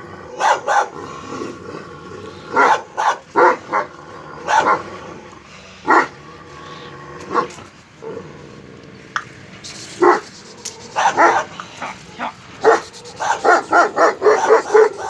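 Dogs barking: single barks with gaps between them, then a fast run of repeated barks, several a second, in the last few seconds.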